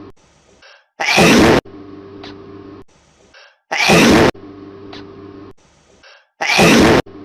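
A hedgehog and a kitten sneezing in turn, on a repeating loop. A loud, short sneeze comes about a second in, again about four seconds in and again near the end. Each is followed by a quieter stretch with a steady low hum and a few faint small sounds.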